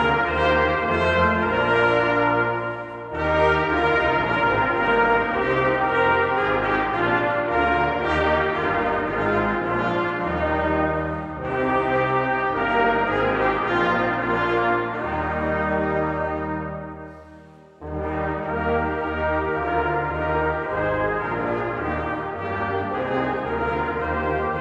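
Brass choir of trumpets, trombones and tuba playing sustained chords in slow phrases. A short break for breath comes about three seconds in, and about two-thirds through the sound dies away to a low held note before the whole ensemble comes back in.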